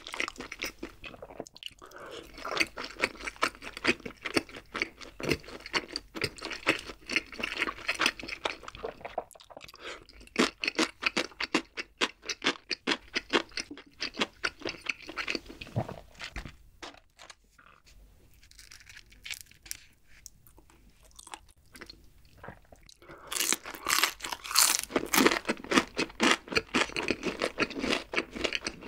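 Close-miked crunching and chewing of battered fried chicken feet, in dense rapid bites. The crunching drops to quieter chewing about halfway through, then turns loud again for the last few seconds.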